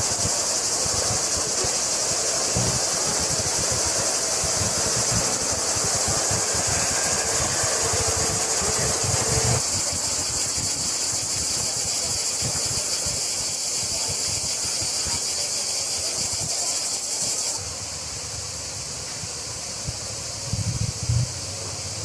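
Cicadas singing in the trees: a dense, steady, high-pitched buzz that drops somewhat in level a few seconds before the end, over a low rumble of outdoor background noise.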